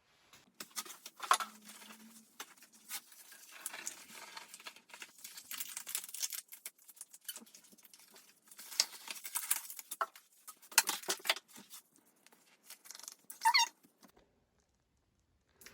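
Scattered rustling, clicks and light taps of things being handled, coming in irregular clusters with short pauses.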